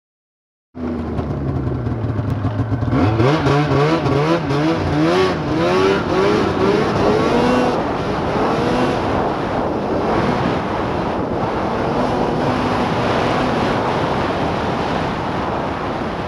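Arctic Cat F7 Firecat snowmobile's two-stroke twin engine starts up under way after nearly a second of silence. It runs steadily at first, then its pitch climbs and drops several times as it revs and pulls, and it settles to a steadier note at speed.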